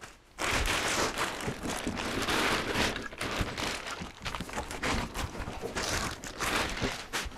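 Thin clear plastic bag crinkling and rustling irregularly as it is pulled off a tower UPS and crumpled aside, starting about half a second in.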